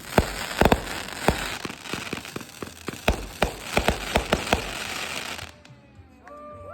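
Fireworks going off: a rapid run of sharp bangs and pops over a crackling hiss, which stops about five and a half seconds in, leaving a few faint whistle-like glides near the end.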